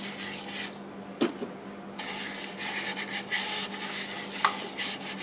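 Wet swishing and scrubbing as water-based sanding sealer is worked liberally onto the wooden bowl on the lathe, under a steady low hum. Two sharp clicks, about a second in and near the end.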